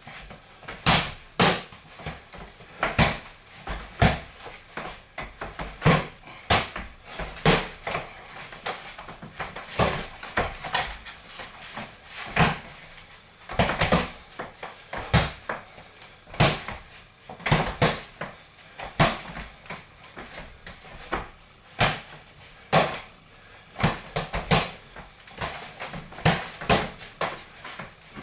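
Gloved punches smacking into punch mitts: sharp slaps, often two or three in quick succession, with short pauses between the combinations.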